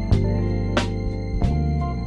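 Instrumental background music: sustained keyboard tones over a regular beat, with a sharp strike about every two-thirds of a second.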